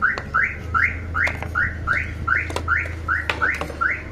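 A rapid, regular series of short high chirps, about three a second, over a steady low hum, with a few sharp clicks in between.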